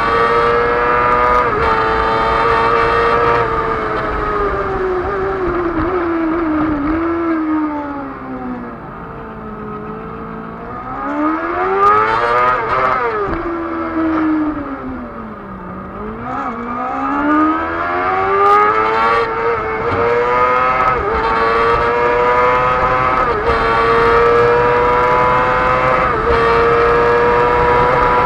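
Race car engine heard from on board at full racing revs. It drops away as the car slows for a tight corner, rises and falls again around twelve seconds in, reaches its lowest pitch near fifteen seconds, then climbs steadily under acceleration with short dips in pitch as it changes up through the gears.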